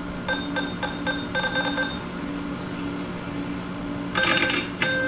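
LEGO Mindstorms brick's internal speaker beeping telegraph-style as a touch sensor is keyed: a quick run of short beeps of one pitch in the first two seconds, then louder, longer beeps from about four seconds in.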